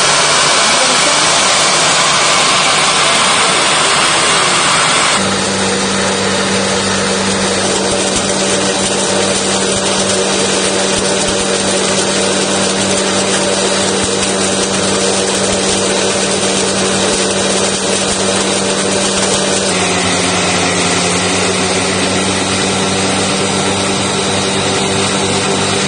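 Small combined rice mill and grain crusher running: a steady motor hum under the dense rushing noise of the mill working the grain. The sound changes abruptly about five seconds in and again about twenty seconds in.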